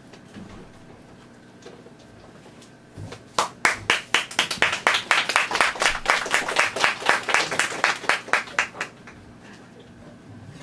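Hand clapping: a fast, even run of claps, about five a second, starting a few seconds in and lasting about five seconds before it stops.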